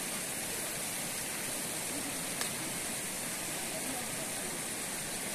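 Shallow river running over rocks and small rapids: a steady rushing of water.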